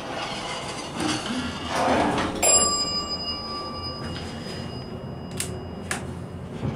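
Elevator bell struck once about two and a half seconds in, its ringing tone fading over the next second or two above the steady running noise of the moving car. Two sharp clicks follow near the end.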